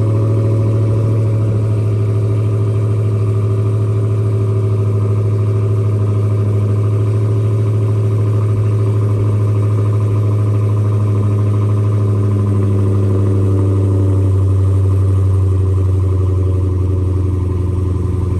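Supercharged 6.2-litre Hemi V8 of a 2022 Dodge Hellcat Redeye idling steadily on a cold start, an even, loud exhaust note that is overdue for an oil change.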